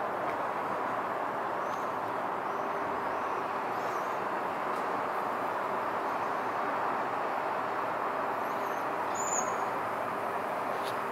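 Steady outdoor background hum at an even level, with a few faint bird chirps and one sharper chirp about nine seconds in.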